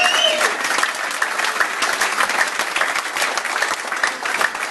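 Audience clapping, dense and continuous.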